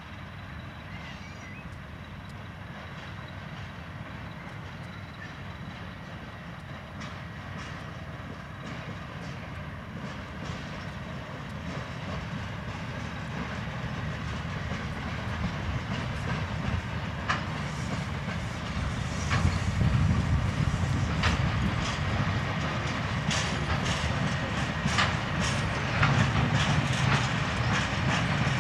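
SM42 diesel-electric shunting locomotive running as it hauls a train of hopper wagons past, its low engine rumble growing louder as it draws near. From about halfway, the wagon wheels clack over the rail joints.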